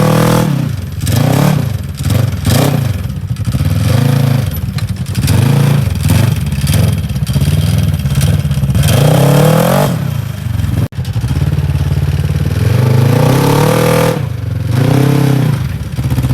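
Polaris RZR Turbo XP side-by-side's turbocharged engine revving up and falling back over and over as the throttle is worked on a trail, with some clatter. The engine briefly cuts out just before the 11-second mark.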